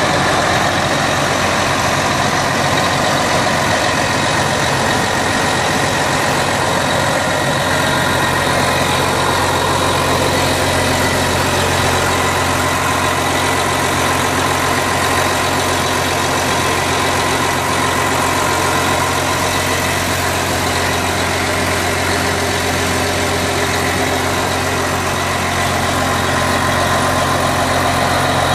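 Case IH Magnum 305 tractor's six-cylinder diesel engine idling steadily.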